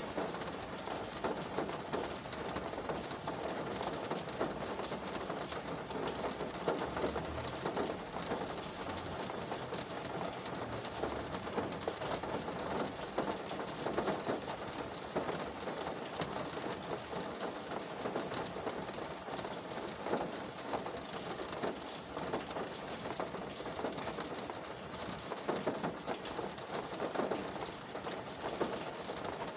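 Steady rain drumming on a car's roof and windows, heard from inside the cabin as a dense patter of drops.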